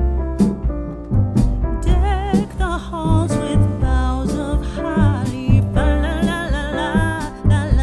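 Background music with a strong bass line and keyboard chords; a singing voice with vibrato comes in about two seconds in.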